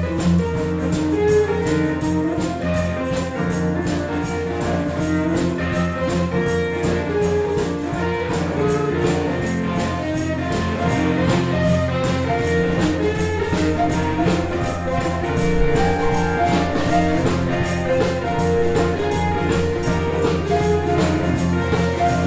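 A band playing music led by electric guitar over a steady beat.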